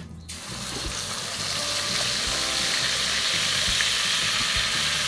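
Ground green chili paste dropped into hot oil in a wok, sizzling from about a third of a second in and holding steady while it is stirred with a spatula.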